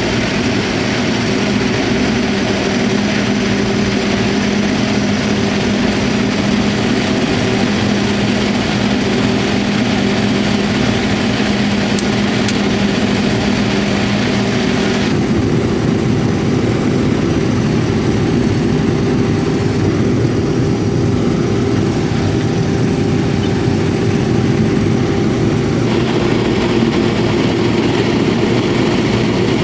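Corn sheller running steadily under an engine hum, with a dense rushing noise throughout. About halfway through, one hum drops away and the rushing eases; it picks up again near the end.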